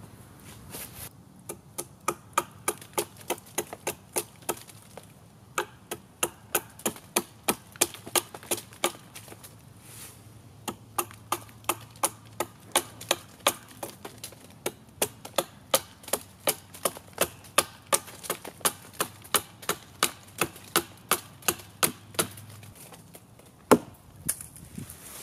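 Hatchet chopping down along the side of an upright wooden branch in quick light strokes, about three or four a second, in runs broken by short pauses. The strokes are shaving the round branch flat into a triangular post. One louder knock comes near the end.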